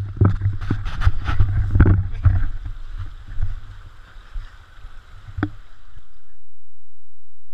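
Storm seawater surging and splashing across a flooded promenade, with wind buffeting the microphone in gusts. The sound cuts off suddenly about six seconds in, leaving only a faint steady low hum.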